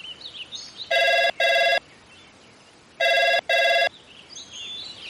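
Telephone ringing in a double-ring pattern: two short rings close together, then a pause, then two more, starting about a second in. Birds chirp faintly underneath.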